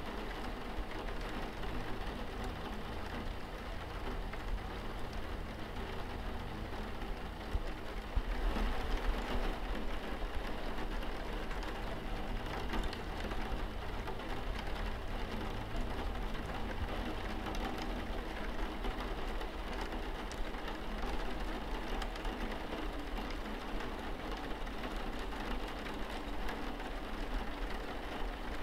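Steady rain falling on a window pane: a dense, even hiss with scattered ticks of single drops, swelling slightly about eight seconds in.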